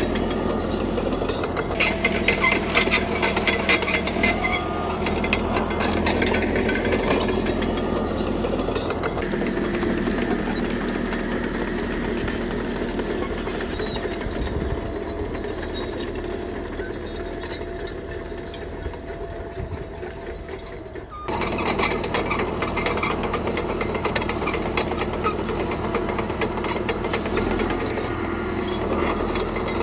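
CAT D3K crawler bulldozer working gravel: its diesel engine running steadily under load, with the rattling clatter of its steel tracks. The sound eases off gradually through the middle, then comes back abruptly at full strength about two-thirds of the way through.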